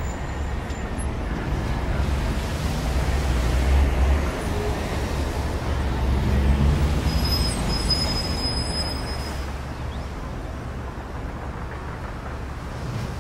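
Low, steady rumble of road traffic, swelling twice and easing off toward the end, with a brief faint high squeal midway.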